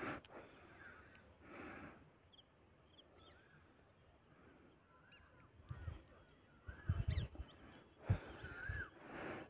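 Scattered faint bird calls, short rising-and-falling whistles and chirps, over a steady high thin whine. A few louder low thumps come between about six and nine seconds in.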